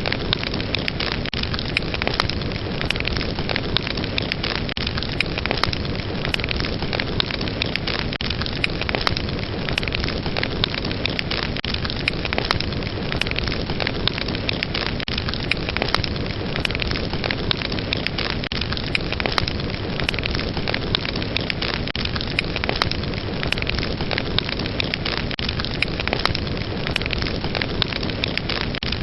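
Fire burning with a steady rush and frequent sharp crackles and pops of burning wood, continuous and even.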